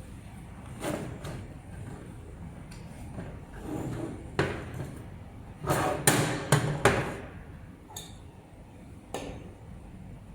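Track-light sections and connectors being handled and knocked together, giving a few sharp knocks and clinks. The loudest come in a quick cluster about six to seven seconds in.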